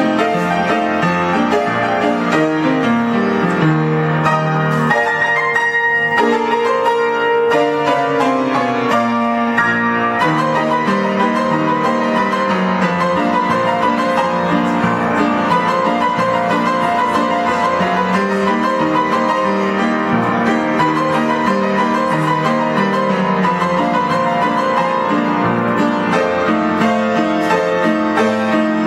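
Solo upright piano playing ragtime: a busy, continuous stream of notes over a moving bass line.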